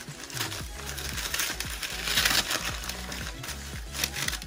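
Black tissue wrapping paper crinkling and rustling as it is pulled off a cap by hand, with background music underneath.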